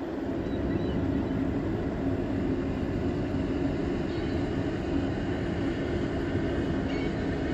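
Ship's horn on a self-unloading bulk freighter sounding one long, steady, deep blast.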